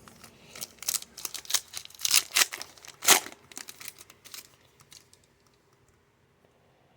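Topps trading card pack wrapper being torn open and crinkled: a flurry of sharp crackles and rustles for about four seconds, loudest near the middle, then dying away.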